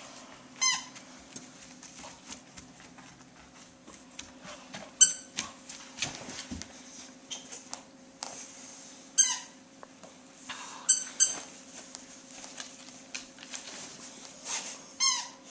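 A dog chewing a squeaky toy bone, setting off short, high squeaks every few seconds, some of them in quick pairs.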